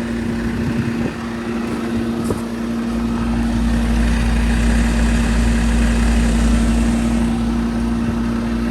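1988 Whirlpool-Tempstar central air conditioner condensing unit running, its compressor (which the owner takes for a Copeland) giving a steady hum under the rush of the condenser fan. A low rumble comes up about three seconds in. The owner thinks the compressor and its valves sound kind of worn.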